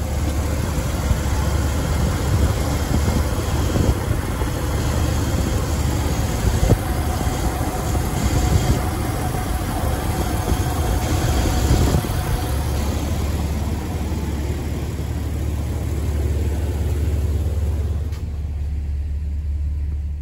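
2005 Jeep Wrangler LJ's 4.0-litre inline-six engine idling steadily, with its belts turning the added second alternator.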